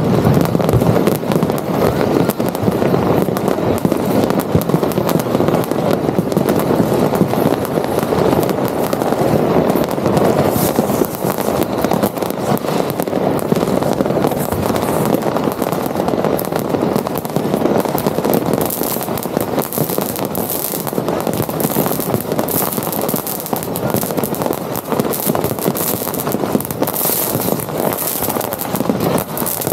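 Mass New Year's Eve fireworks: rockets and firecrackers banging and crackling without pause, many at once, with sharper cracks coming thicker in the second half.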